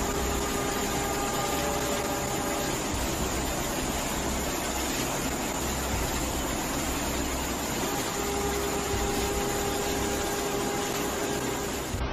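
Heavy rain and rushing floodwater: a steady, dense hiss of noise, with a faint steady hum of a few tones for the first few seconds and again from about eight seconds in.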